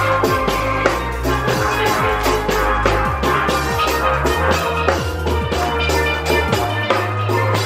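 Upbeat Caribbean-style music: steel drums over a drum kit with a quick, steady beat and a sustained bass line.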